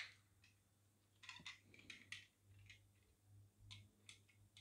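Faint, scattered clicks and scrapes of a steel tape measure being pulled out and handled against a die-cast model car, with one louder click at the start.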